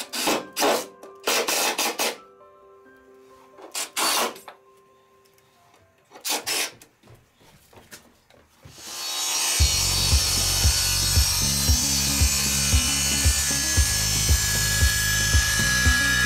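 Cordless drill running in several short bursts, driving screws to fasten a pipe to a wall, over faint music. About nine seconds in, louder music with a steady beat takes over.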